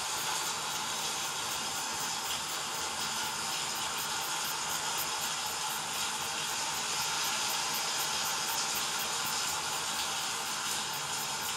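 Steady, even hissing noise of a background storm sound track, like rain and wind, with no breaks.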